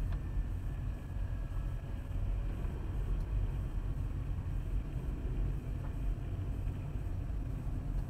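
Steady low rumble of a semi truck's engine and tyres at highway speed, picked up by a dash camera inside the cab.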